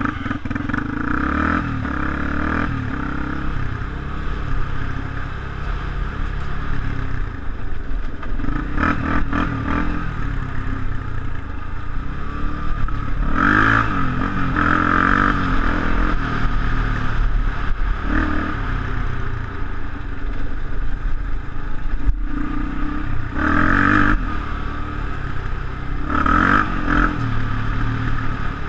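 Off-road vehicle engine running under load on a rough dirt trail, revving up and down repeatedly, with several sharp rev-ups.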